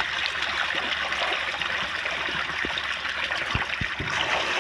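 Water running in a steady trickle, with a few soft low knocks about three and a half seconds in.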